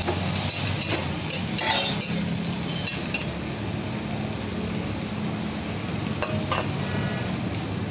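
Steel spatula stirring and tossing paneer cubes and vegetables in a wok, with a soft frying sizzle. Metal clinks and scrapes of spatula on pan come in clusters about a second in and again around six seconds, over a steady low hum.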